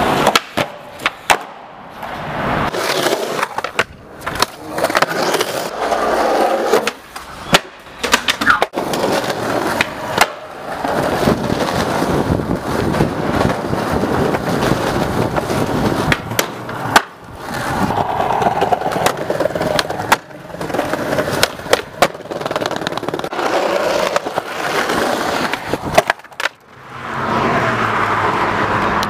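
Skateboard wheels rolling on concrete, with sharp clacks of the board popping and landing scattered throughout. The rolling breaks off and starts again several times.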